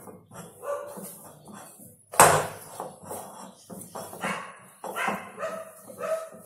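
A dog barking, with one loud bark about two seconds in and several short pitched yelps later. Soft sounds of dough being kneaded by hand in a glass bowl lie beneath.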